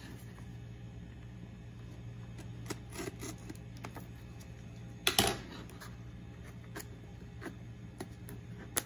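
Cardboard box being cut open and handled: a utility knife blade scraping along the box's seal, with scattered small scrapes and clicks, one louder scrape about five seconds in and a sharp click near the end, over a low steady hum.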